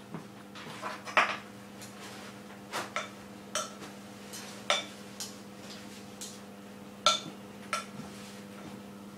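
A utensil clinking and knocking against a ceramic mixing bowl as cookie dough is mixed, in irregular strikes a second or so apart. The loudest strikes come about a second in, near the middle and about seven seconds in.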